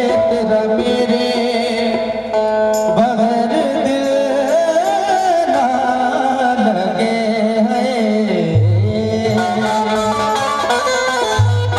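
Live qawwali music: harmoniums play a melody under a voice singing a long, wavering line, with a low steady bass note coming in about two-thirds of the way through.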